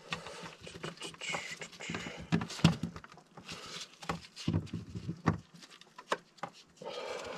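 Gloved hands fitting a brass valve onto white plastic water pipe: irregular small clicks, taps and rustles, with a short scraping hiss about a second in.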